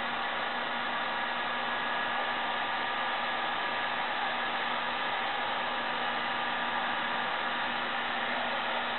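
Electric heat gun running steadily: an even blowing hiss with a faint low hum from its fan motor.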